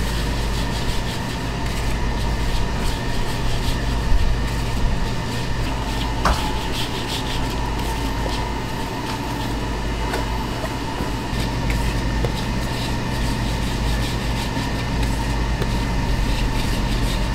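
Gloved hands rolling and pressing soft rice-flour dough against a floured plastic cutting board, a soft rubbing with a few light knocks. A steady low hum runs underneath.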